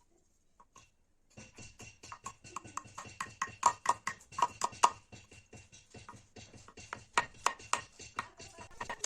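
A quick, uneven run of sharp tool taps or knocks on the workpiece, several a second, starting about a second and a half in, with a faint steady ring behind them.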